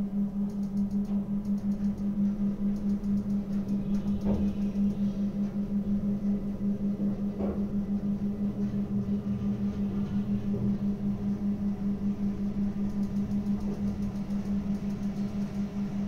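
Steady low hum of ship's machinery, pulsing several times a second, with a couple of faint knocks.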